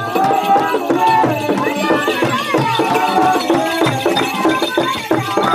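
Traditional music: several voices chanting together over rapid hand drumming.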